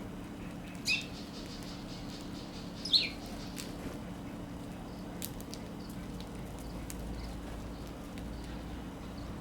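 Eurasian tree sparrows at a feeder: two short chirps, about a second and three seconds in, over scattered small ticks and taps. A steady low hum runs underneath.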